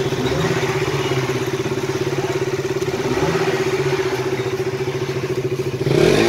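Royal Enfield Classic 350's single-cylinder engine idling with a fast, even pulse, the revs rising briefly near the end.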